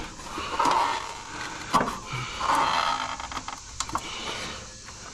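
Hands pulling and twisting at the plastic fan grille and centre cap of an air-conditioner condenser unit: scraping and creaking of plastic with several sharp clicks, one a little under two seconds in and a cluster a little after the middle.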